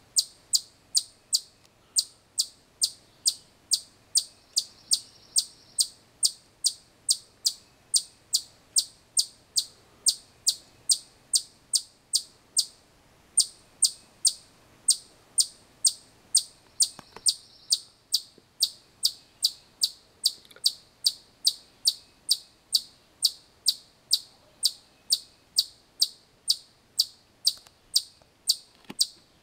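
A chipmunk giving its repeated chip alarm call: short, sharp, high-pitched chips at a steady pace of about two a second, with a brief pause about halfway through.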